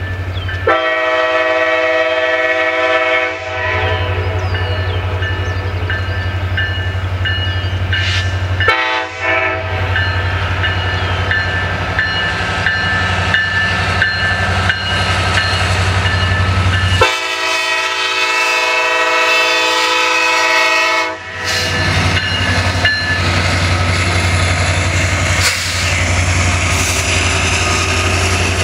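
Diesel freight locomotive's air horn sounding for a grade crossing: a long blast, a short one several seconds later, then another long blast, over the steady ringing of the crossing signal bells and the locomotive's low engine rumble. Near the end the train reaches the crossing and loaded tank cars rumble and clatter past.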